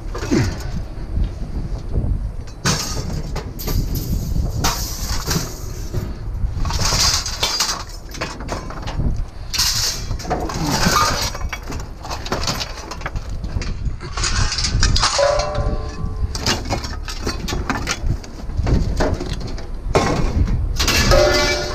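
Pieces of scrap metal clanking and clattering as they are handled, sorted and tossed down, with irregular knocks and a couple of short metallic rings.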